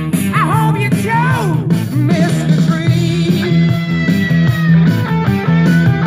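Rock music with guitar and a singing voice, played back from a cassette on a Nakamichi CR-1A two-head cassette deck and heard through loudspeakers.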